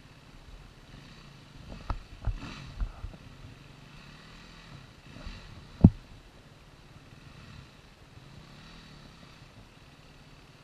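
Distant off-road motorcycle engine revving up and down while the bike barely moves on a steep muddy climb. Several sharp thumps come between about two and three seconds in, and the loudest single thump comes about six seconds in.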